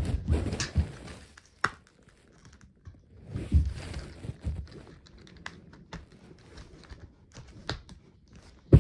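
Handling noise: rustling with scattered light clicks and taps as the loose foam tail pieces of a toy RC plane are pulled off and pushed back on. The heaviest handling comes in the first second and around the middle.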